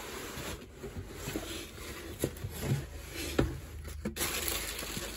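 Cardboard shoe box lid being slid off and set down, with rustling of the tissue paper inside and a couple of sharp taps about two and three and a half seconds in.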